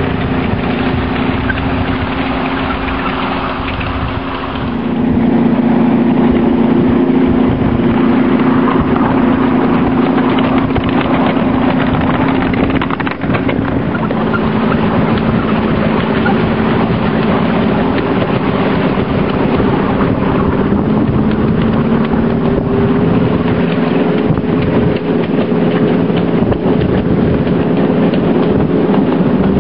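Ride-on miniature railway locomotive modelled on a Class 20 diesel, its engine running steadily as the train moves along. The hum shifts in pitch a few times and gets louder about five seconds in, with wind buffeting the microphone.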